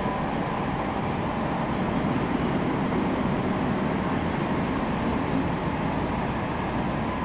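Running noise heard inside a Saitama Railway 2000 series electric train car: a steady rumble of wheels on rail and running gear as the train travels between stations.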